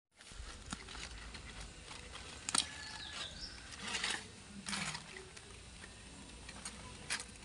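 Knife work and handling of a singed chicken carcass on a bed of leaves: scattered soft clicks, knocks and leaf rustles as the bird is cut open. A bird chirps briefly about three seconds in.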